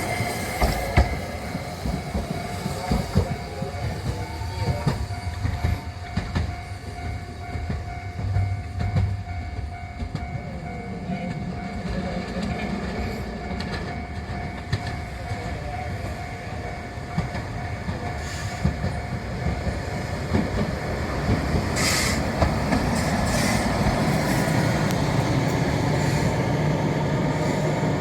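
Rail vehicles running through a level crossing, their wheels clattering over the rails. A steady ringing tone through the first half fades out around the middle, and a low rumble builds toward the end.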